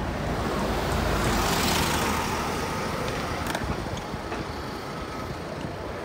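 A motor vehicle driving past on a city street. Its engine and tyre noise swells, is loudest about one and a half seconds in, then fades into steady background traffic.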